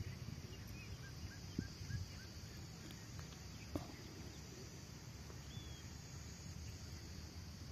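Faint outdoor ambience: low wind rumble on the microphone under a steady faint high hiss, with small bird calls. A quick run of four or five short chirps comes about a second in, and a single whistled note a little past halfway.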